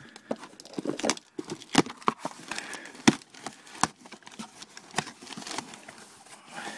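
Cardboard shipping box being opened by hand: flaps pulled open and papers and crumpled brown kraft packing paper handled, giving a run of irregular sharp crackles and rustles.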